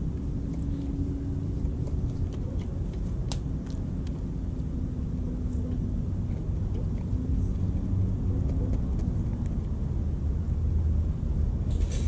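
Steady low rumble of distant road traffic, with a faint droning hum that wavers a little. Scattered faint clicks come from a coyote nosing and eating birdseed off the ground close by.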